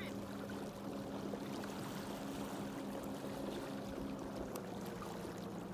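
Small waves lapping and washing over a rocky lakeshore, with a steady low hum underneath.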